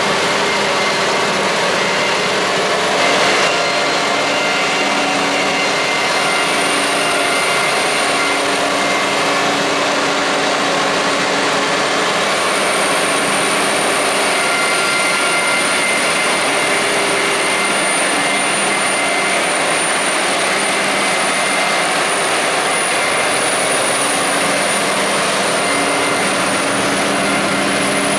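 Heavy farm machinery working a maize harvest, a forage harvester and tractors running steadily under load, with a constant high whine over the engine noise.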